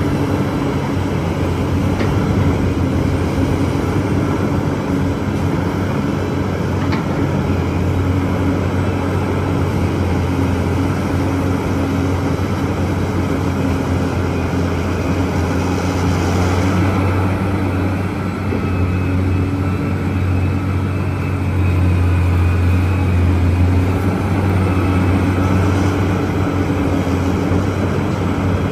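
Large Liebherr mining excavator's diesel engine running steadily with a deep hum, growing somewhat louder about two-thirds of the way through.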